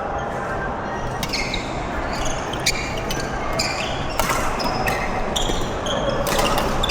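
Badminton rally: sharp racket strikes on the shuttlecock every second or so, mixed with short high squeaks of court shoes on the floor.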